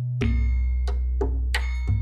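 Background music: a steady bass line under struck mallet-percussion notes in a regular beat.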